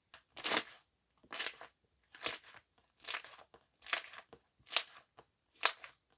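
Foam-filled jelly slime squeezed by hand, giving seven crackly squishes about one a second.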